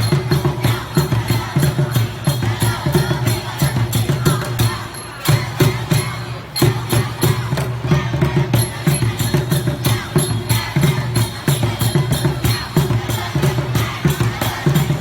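Music with a fast, steady percussion beat, about four strokes a second.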